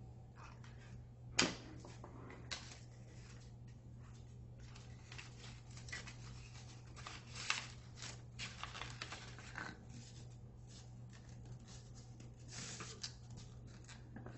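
Folded paper being handled and pressed together, rustling and crinkling in short bursts, with a sharp click about a second and a half in. A steady low hum runs underneath.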